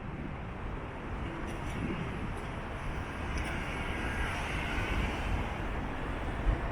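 Wind buffeting the microphone with a low, gusty rumble over a steady rushing outdoor background that swells about halfway through.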